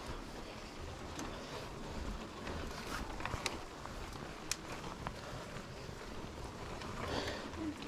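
Footsteps on a stone path over a low outdoor rumble, with a few sharp, irregular clicks.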